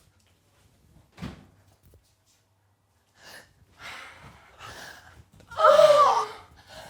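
A dull knock about a second in, then breathy panting that grows louder, and a loud drawn-out moan near the end: a person imitating the sounds of a couple having sex.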